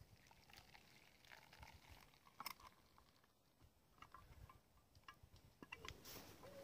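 Near silence, broken by scattered faint clicks and one sharper click about two and a half seconds in, with a few faint short tones near the end.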